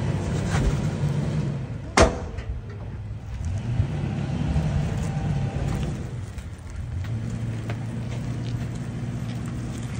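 Toyota Tacoma pickup's engine running with a steady low hum that swells for a few seconds in the middle. There is one sharp knock about two seconds in.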